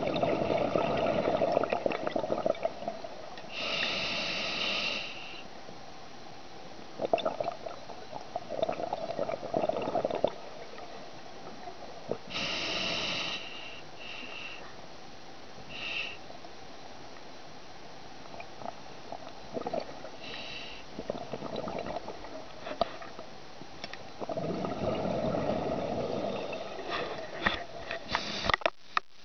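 Scuba diver breathing through a regulator, heard through an underwater camera housing. Long bubbling exhalations alternate with short hissing inhalations, about four breaths, and a few sharp clicks come near the end.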